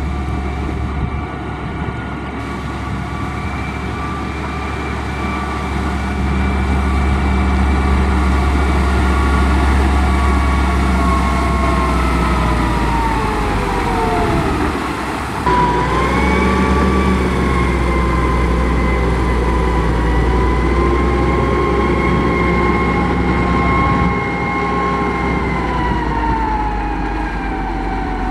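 Heavy diesel construction machine engine running with a steady high whine over a low drone; about halfway through the pitch sinks, then the sound changes abruptly to another steady engine run.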